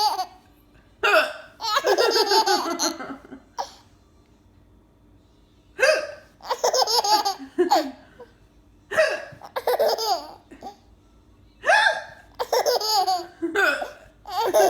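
A mother hiccups about five times, every few seconds, and after each hiccup a baby breaks into a burst of laughter.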